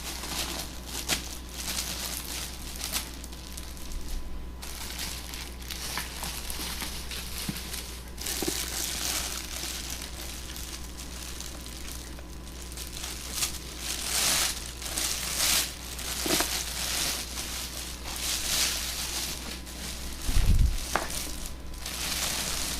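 Plastic packaging wrap crinkling and rustling in uneven bursts as a boxed coffee maker is unwrapped and handled, with one dull thump near the end.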